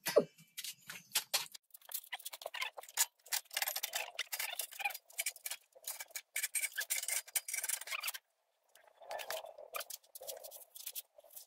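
Fast, irregular scraping and rubbing with small clicks, from steel stove parts being handled and worked by hand on a workbench. The sound stops briefly about eight seconds in, then resumes.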